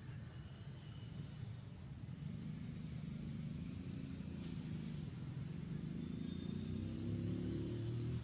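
A vehicle engine running, its pitch wavering and then climbing before it cuts off suddenly.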